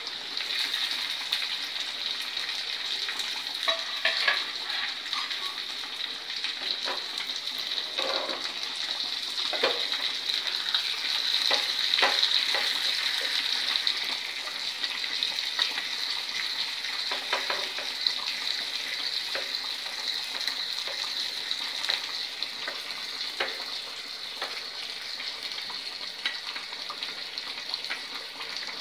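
Small onions (shallots) with a dried red chilli and mustard seeds sizzling steadily in hot oil in a small tempering pan, with now and then a click or knock as a metal ladle stirs them against the pan.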